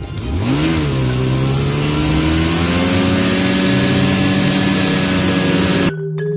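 Snowmobile engine revving up sharply, dipping briefly, then pulling steadily with its pitch slowly rising, with wind noise on the microphone. About six seconds in it cuts off abruptly to marimba music.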